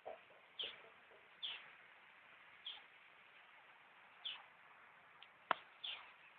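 A bird repeating short, quickly falling chirps about once every second or so, with one sharp click near the end that is louder than the calls.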